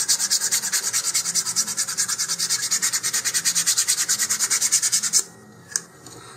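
Sandpaper rubbed on the edge of a basswood model-rocket fin in quick, even back-and-forth strokes, shaping the fin's edge. The sanding stops abruptly about five seconds in, leaving one faint click.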